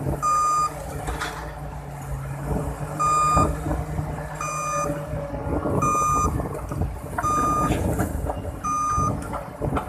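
Kobelco SK330-8 excavator's travel alarm beeping at a steady pace, six short high beeps about 1.4 seconds apart, with one longer gap near the start. Underneath, the diesel engine runs with an uneven rumble.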